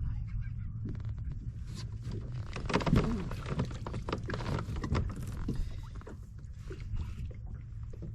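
Low wind rumble on the microphone with a run of knocks and clatter from a kayak and the gear aboard it. A louder bump comes about three seconds in.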